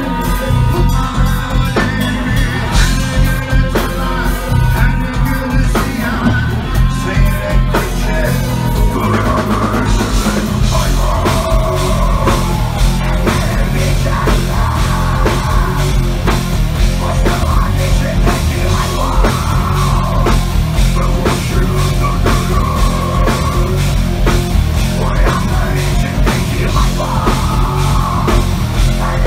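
Heavy metal band playing live through a club PA: a pounding drum kit with distorted guitars and bass, loud and continuous. The arrangement shifts about nine seconds in.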